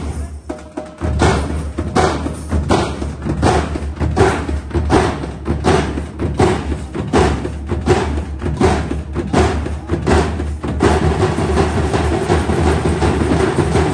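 A street drum band of many large waist-slung drums, beaten with sticks in a steady loud beat of about three strokes a second. About eleven seconds in, the drumming turns into a fast, dense continuous roll.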